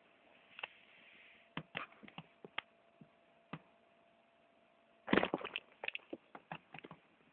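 Scattered light clicks and scratchy rustles of a cat shifting about in a cardboard box, with a louder, denser patch of crackling about five seconds in.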